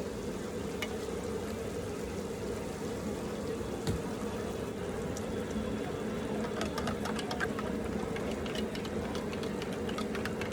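Malpua frying in a pan of hot fat: a steady bubbling hiss, with sharp crackles that grow thicker from about six seconds in.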